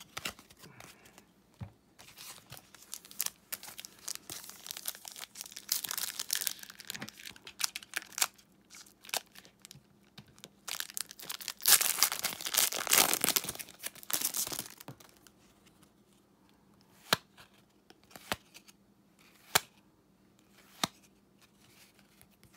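Foil wrapper of a 2018-19 NBA Hoops basketball card pack crinkling and tearing as it is ripped open by hand, loudest for a few seconds about halfway through. It ends in a few separate sharp clicks as the cards are handled.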